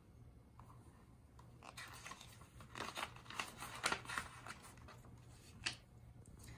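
Pages of a picture book being turned: faint paper rustling and crackling over a couple of seconds, then one sharper crackle near the end.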